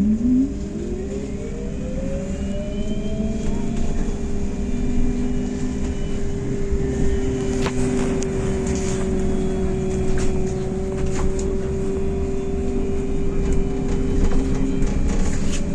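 Electric traction drive of a MAZ-203T70 trolleybus whining from inside the cabin. The whine rises in pitch as the trolleybus pulls away in the first few seconds, then holds a steady tone over road rumble, with a few rattles and knocks.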